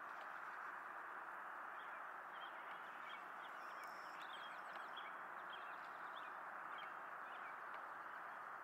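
Faint bird chirps scattered through the middle, with a brief thin whistle about four seconds in, over a steady background hiss.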